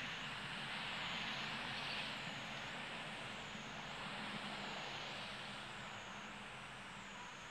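Insect chorus: a steady high hiss, with a thin whine above it that dips in pitch and comes back about once a second.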